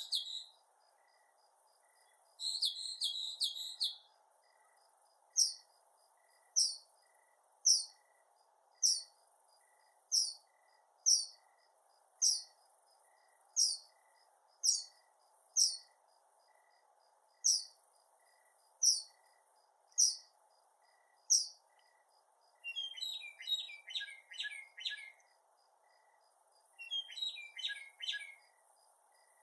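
Northern mockingbird singing. A short burst of rapid repeated notes opens the song, and a second burst follows about two seconds in. Then comes a long series of single sharp down-slurred notes, about one a second, and near the end fast, chattering multi-note phrases.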